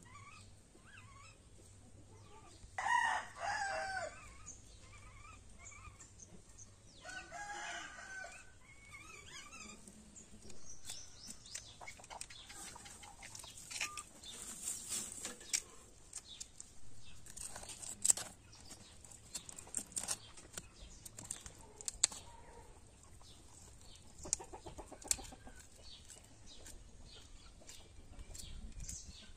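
A rooster crowing twice, about three and seven seconds in, with faint small-bird chirps at the start. Through the second half come scattered sharp scraping clicks as a blade scales a fish.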